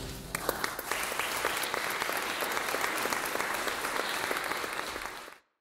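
Applause, with many separate hand claps, starting just after the piano's last chord fades and cutting off abruptly near the end.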